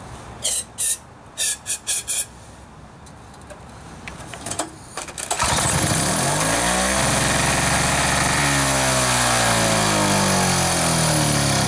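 Five short hissing bursts near the start, then about five seconds in a small snow-thrower gasoline engine starts and keeps running loudly, its speed rising and falling.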